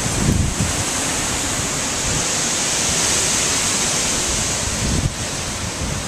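Hurricane wind and heavy rain: a loud, steady rushing hiss, with gusts buffeting the microphone as low rumbles just after the start and again about five seconds in.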